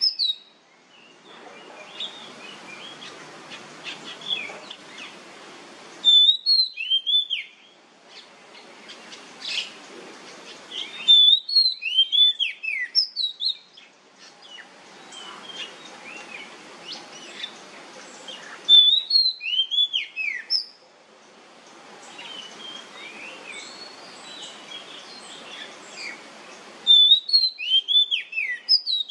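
Oriental magpie-robin singing loud, short phrases of sweeping whistled notes, four times at intervals of six to eight seconds. Between the phrases there is a steady hiss with faint chirps.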